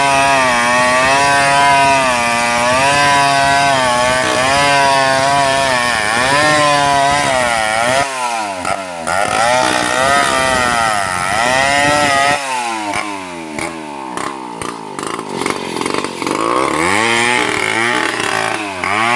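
Stihl 070 two-stroke chainsaw ripping lengthwise through a large sengon log, its engine note wavering under load. From about eight seconds in, the engine speed swings up and down repeatedly as the throttle is eased off and opened again.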